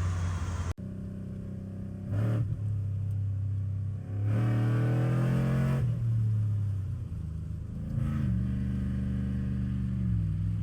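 Pickup truck V8 idling and being revved: a short blip about two seconds in, a longer rev about four to six seconds in, and another short blip near eight seconds, settling back to idle each time.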